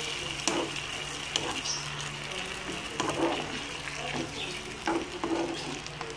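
Marinated chicken pieces sizzling in garlic butter in a nonstick frying pan, a steady hiss, while a wooden spatula stirs them with repeated short scrapes and knocks against the pan.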